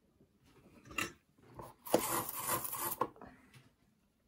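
Handling noise from guitar wiring being worked by hand: a knock about a second in, then about a second of rustling, rubbing scrape as the wires and the blade switch assembly are moved, ending in a click.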